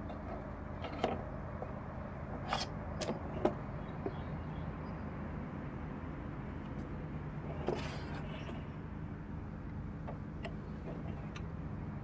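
Several short knocks and bumps as a large bird feeder is lifted, turned and set down on a table, over a steady low mechanical hum.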